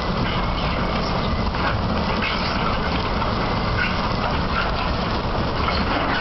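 O&K bucket-wheel excavator 258 digging: a steady, dense mechanical rumble from the turning bucket wheel and its drives, with scattered short high squeaks and a faint steady whine.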